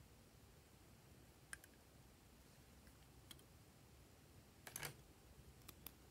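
Faint clicks and taps from handling a small metal rose-shaped trinket box and opening its hinged lid, with a plastic spatula tapping inside it. The taps are single and spaced out, with a short cluster of quick taps, the loudest, near the end.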